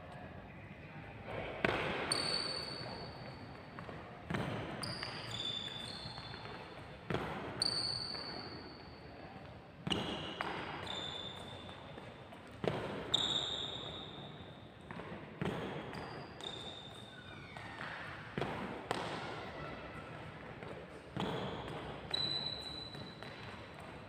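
Sports shoes thudding and squeaking on a wooden court floor as a badminton player lunges and recovers in a footwork drill, a landing every two to three seconds, each with a short high squeak and echoing in a large hall.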